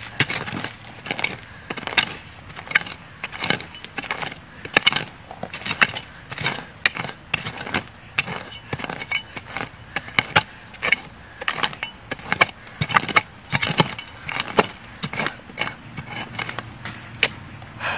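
Short-handled shovel digging and scraping stony soil away from the base of a tree trunk, in a run of quick, sharp scraping strokes about one or two a second.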